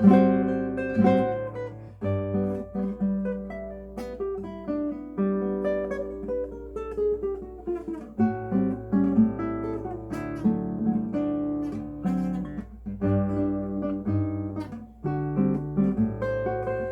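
Classical guitar playing a piece: plucked notes ringing over lower bass notes.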